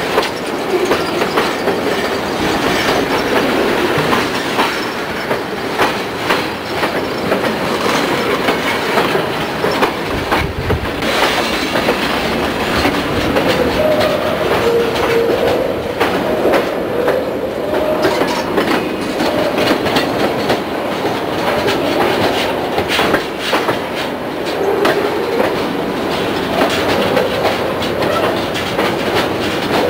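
Freight cars rolling past close by: a steady rumble of steel wheels on rail, with the repeated clicks of wheels crossing rail joints. A wavering wheel squeal comes in midway and again near the end.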